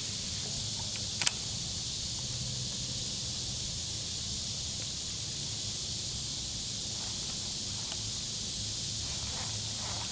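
Steady evening insect chorus, a high even hiss, over a low steady hum, with one sharp click about a second in.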